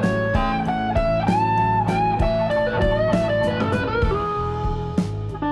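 Background music: a guitar melody with notes that bend in pitch, over a steady bass line and a regular beat.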